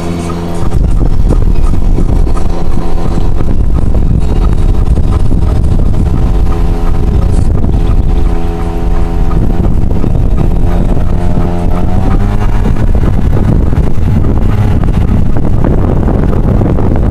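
The camera vehicle's engine running as it drives along, with a heavy rumble of road and wind noise; the engine note climbs about twelve seconds in.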